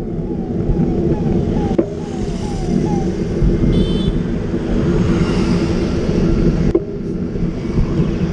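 Steady low rumble of wind buffeting the microphone and tyre noise from a bicycle-mounted camera riding along the road, with a sharp knock about two seconds in and another near seven seconds, as from bumps in the road. A series of short falling whistles sounds over the first three seconds.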